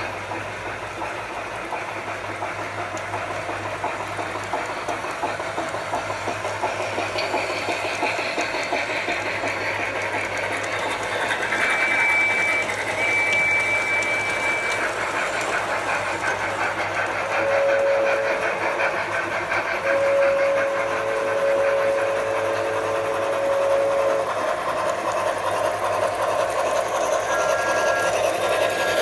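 Large-scale model trains running: a steady, fast mechanical rattle of their wheels and motors on the track, with sound-decoder locomotive whistles over it. A high whistle blows twice a little before halfway, a lower whistle of several notes blows twice just past halfway, the second held about four seconds, and another two-note whistle starts near the end.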